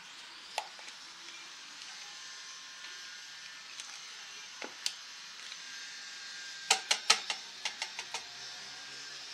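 Liquid cream poured from a carton into a stainless steel mixing bowl, faint, with a few single clicks. Near the end comes a quick run of sharp clicks and crackles, the loudest sound, as the carton is squeezed empty over the bowl.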